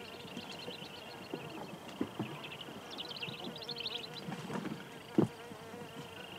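Insects droning and chirping in a steady high pitch, with short trills over it. Scattered scrapes and knocks of boots and a metal equipment case against rock, one sharper knock about five seconds in.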